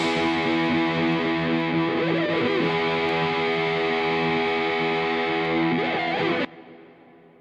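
Background music: one sustained chord rings steadily, then cuts off abruptly about six and a half seconds in, leaving a short fading tail.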